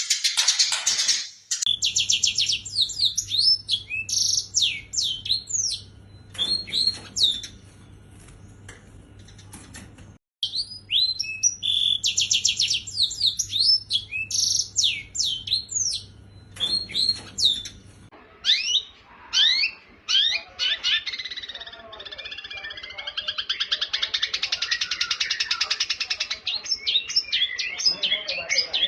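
Contest songbirds singing: a fast run of sharp whistled notes and trills, the same passage played twice, then a different bird's quicker, denser twittering from about two-thirds of the way in.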